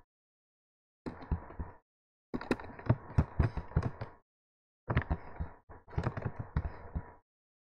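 Computer keyboard and mouse clicking in three short bursts of rapid tapping.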